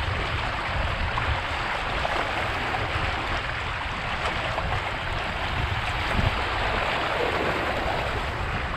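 Steady water swishing and lapping along the hulls of a Strike 20 trimaran under sail, with wind buffeting the microphone as a gusty low rumble.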